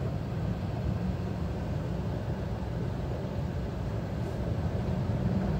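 Seat Leon car driving slowly through floodwater: a steady low rumble of engine, tyre and water noise.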